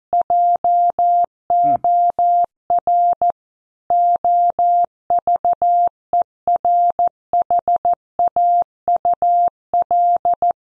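Computer-generated Morse code: a single steady mid-pitched beep keyed on and off in short dots and longer dashes, with gaps between letters and words, sending a news headline at 14 words per minute. The sending stops shortly before the end.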